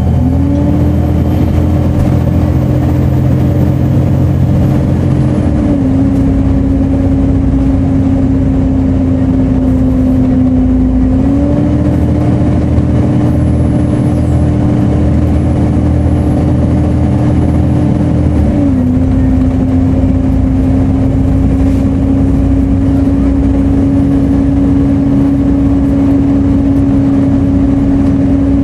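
Volvo B7TL double-decker bus's cooling fan making a steady hoover-like whine over the diesel engine. The whine dips slightly in pitch about six seconds in, rises again around twelve seconds and dips again around nineteen, as the engine note changes with it.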